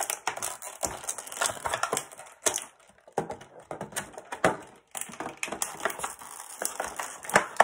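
Clear plastic packaging crinkling and crackling in irregular clicks as an action figure's spare heads are worked out of their plastic bags, with the loudest crackle near the end.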